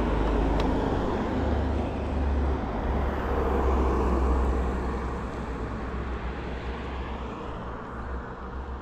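Road traffic noise: a motor vehicle going by, loudest in the first half and fading away through the second.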